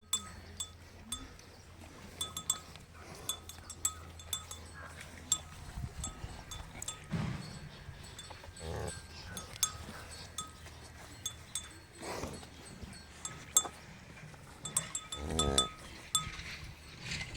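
Livestock bells clinking irregularly, with a few animal calls from the cattle, one of them a wavering call about fifteen seconds in. A low steady hum runs underneath for the first six seconds.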